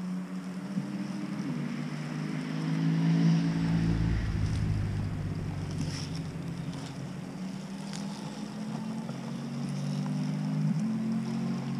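Rochobby 1941 Willys MB 1:6 RC scale crawler driving over dry leaves: a steady whine from its electric motor and gears that shifts in pitch with the throttle. A low rumble comes as it passes close by near the middle, with a few sharp crackles from the leaves and twigs under its tyres.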